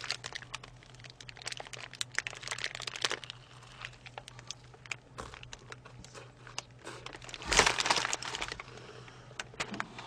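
Paper burger wrapper crinkling in the hands as a burger is held and bitten, with scattered small crackles and clicks. A louder burst of paper rustling comes about seven and a half seconds in.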